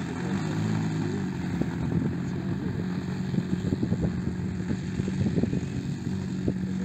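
Radio-controlled model airplane's engine running steadily at low throttle while the model taxis on grass, its note shifting in pitch about a second in.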